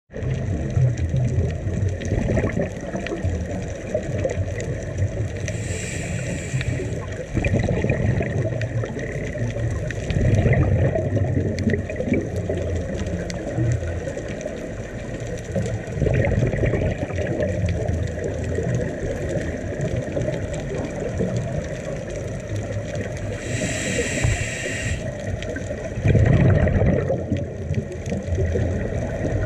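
Muffled underwater noise through a waterproof camera housing on a scuba dive: a steady low rumble and gurgling of regulator exhaust bubbles that swells every few seconds. Two brief hisses stand out, about six seconds in and again about twenty-four seconds in.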